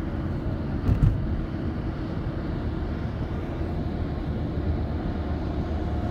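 Steady road and engine noise heard inside a moving car, with a brief knock about a second in.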